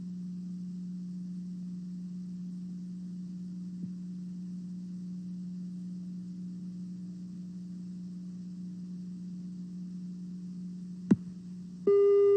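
Steady electrical hum from the blank stretch of a VHS tape's playback audio. A single sharp click comes about 11 seconds in, and then a loud steady tone cuts in just before the end.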